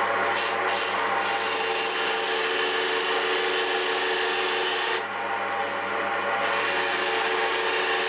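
Wood lathe spinning a wooden pen blank while a hand-held turning chisel cuts it: a steady scraping hiss over the lathe's steady hum. About five seconds in the cutting noise drops away for a second and a half, then comes back as the tool meets the wood again.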